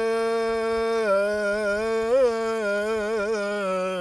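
A male singer holding one long note of an Arabic song, unaccompanied. The pitch steps down slightly about a second in, then wavers in short melodic ornaments through the middle and towards the end.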